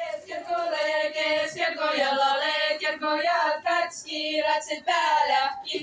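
Seto women's voices singing a short folk-song chorus in a few phrases of held, stepping notes.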